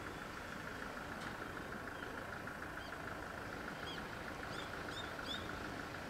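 Steady hum with a constant high whine from a parked 8500 series electric train's onboard equipment. Small birds chirp several times from about two seconds in.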